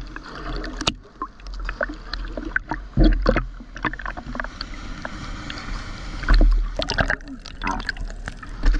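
Sea water sloshing and splashing against a GoPro in its waterproof housing at the surface, with a low rumble and crackling splashes, and two louder splashes, about three and six seconds in. Near the end the camera dips under the water.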